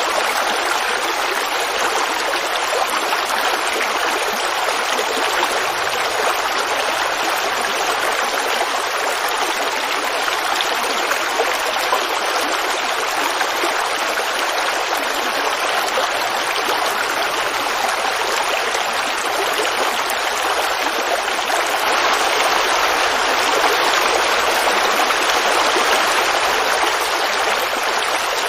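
Forest creek flowing steadily over stones, a continuous babbling rush, swelling a little louder about three quarters of the way through.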